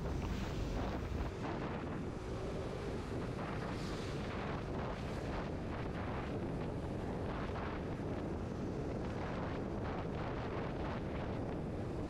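Riding noise from a BMW G 310 GS motorcycle on a badly broken, potholed road: a steady wind rush on the microphone with a run of small knocks and jolts from the bumps.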